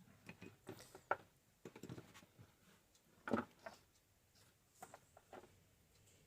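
Scattered small taps and clicks of wires and a soldering tool being handled while a wire is tinned, with a sharp click about a second in and the loudest knock a little past three seconds in.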